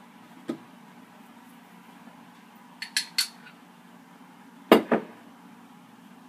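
Kitchen utensils and muffin halves tapping and clinking against a plate: a light tap about half a second in, three quick sharp clinks around three seconds in, then two louder knocks close together near five seconds.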